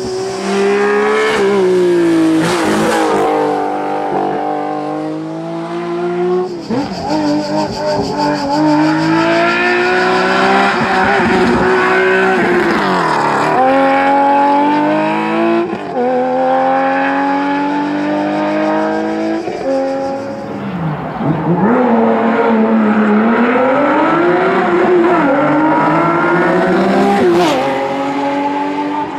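Historic rally car engines revving hard on a special stage, the pitch climbing through the gears and dropping sharply several times on lifts and downshifts, with tyre squeal.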